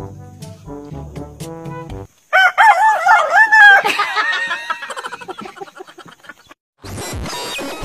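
Rooster crowing loudly, one long wavering call starting about two seconds in and fading away, after a few seconds of music. A short burst of noise near the end.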